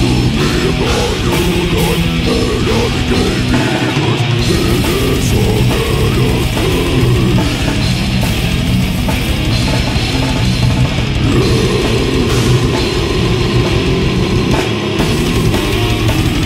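Dark metal song playing: distorted electric guitars over a drum kit with a rapid kick drum. The kick drum drops out for a moment twice, about four seconds in and again near the end.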